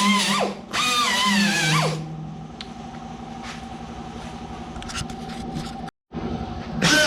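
Background music with plucked guitar for the first two seconds, then a power tool running with a steady whine and a few light clicks. It cuts out abruptly about six seconds in, and the music comes back right at the end.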